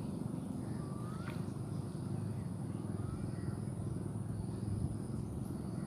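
Steady low outdoor background rumble with a constant high-pitched whine and two faint chirping calls, about one and three seconds in.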